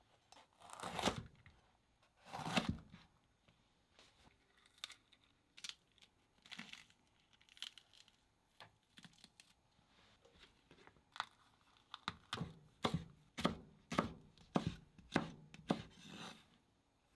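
A chef's knife cuts a green bell pepper on a plastic cutting board. Two louder crunching cuts come in the first few seconds, then small snaps and rustles as the pepper pieces are handled. Near the end a run of knife strokes, about two a second, slices the pepper into thin strips against the board.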